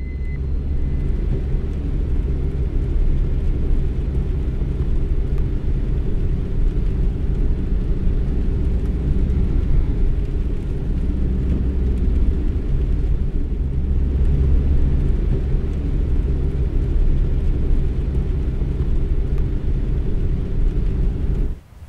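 Steady low rumble of a car's engine and road noise heard from inside the cabin while driving, cutting off suddenly near the end.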